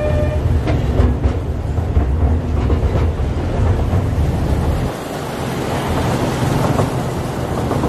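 Miniature toy train running, heard from aboard: a heavy low rumble from the moving carriage, with a few clacks about a second in. A held tone cuts off just after the start, and about five seconds in the low rumble drops away, leaving a lighter hiss.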